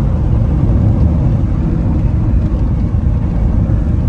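Steady low rumble of a Toyota car driving on a paved road, heard from inside the cabin: engine and tyre noise.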